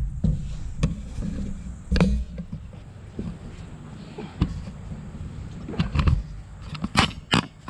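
Irregular knocks and thumps of boots and handling on the steel boom of a bucket truck, with a low rumble under them; two sharp knocks come close together near the end.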